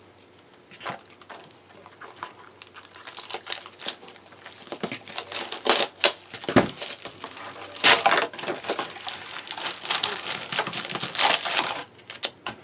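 Crinkly wrapping and cardboard being torn open on a sealed trading-card booster box: irregular crackling and crinkling that grows busier and louder after a few seconds, with several sharp loud crinkles.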